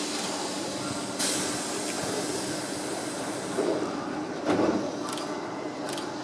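Tobu 9000 series electric train standing at the platform with a steady hum from its equipment. A sharp burst of compressed-air hiss comes about a second in, and two duller thuds follow later.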